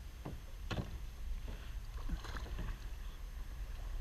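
Kayak paddles working in shallow, muddy water: a couple of sharp knocks in the first second, then fainter knocks and splashes over a low rumble.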